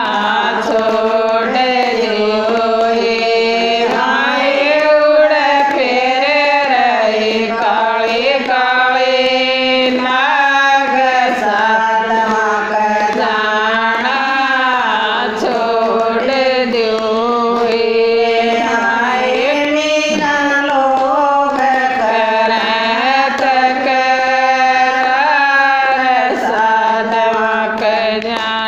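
Women singing a Haryanvi devotional bhajan in a chant-like style, the melody sliding and held over a steady drone.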